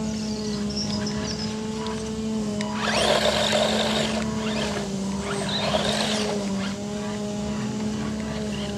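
Battery-powered FTX Tracer RC monster truck with a brushed electric motor driving on loose dirt, with two louder rushes of motor and tyres on dirt as it comes close, about three seconds in and again about six seconds in. A steady hum runs underneath throughout.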